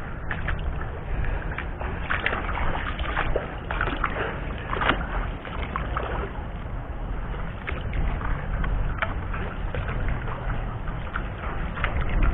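River water running and sloshing steadily, with scattered small clicks and knocks over it.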